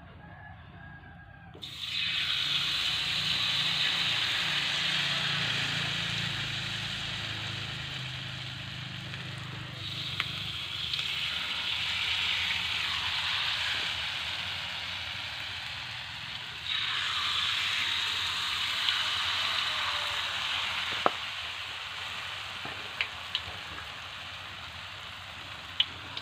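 Rempeyek batter with fried grasshoppers hitting hot oil in a wok and sizzling: three sudden bursts of loud sizzling, about two, ten and seventeen seconds in, each slowly dying down as the batter sets. A few sharp clicks near the end.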